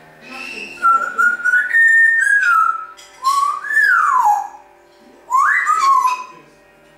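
African grey parrot whistling three phrases: first a run of steady notes stepping up in pitch, then a note that rises and slides down, then a quick rising whistle that levels off near the end.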